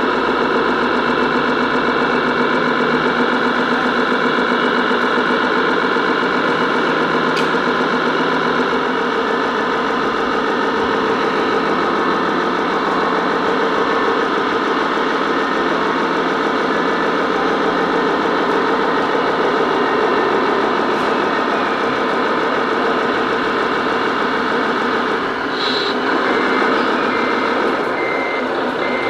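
Radio-controlled scale truck running steadily, its simulated diesel engine sound mixed with drive noise. Near the end a reversing beeper starts, beeping about once a second.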